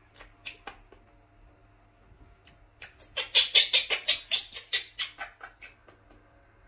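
Baby monkey squealing: a few short squeaks near the start, then a rapid run of loud, high-pitched squeals at about five a second for roughly three seconds in the middle.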